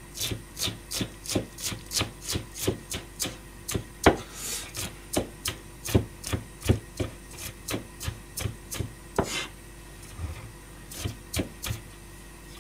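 A wide steel knife finely mincing onion on a plastic cutting board: quick, even chopping strokes, about four a second. The blade briefly scrapes across the board twice, and the chopping pauses for a moment near the end before a few more strokes.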